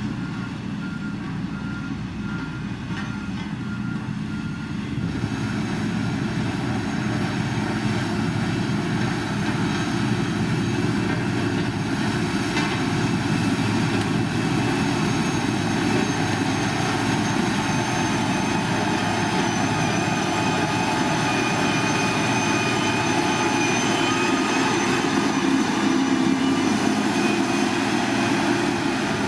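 Diesel engine of heavy road-construction machinery running steadily under load, with a reversing beeper sounding in the first five seconds. After that the machine gets somewhat louder.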